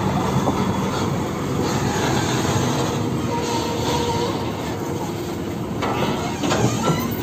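Hino tractor truck hauling a trailer loaded with a steel box girder rolling slowly past close by: the diesel engine runs under a steady rattle and clatter of the trailer and its load chains, with a few sharp clanks about six to seven seconds in.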